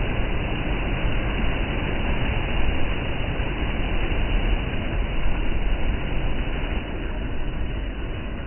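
Sea surf breaking and washing over shoreline rocks: a loud, steady rushing with a heavy low rumble, easing slightly near the end.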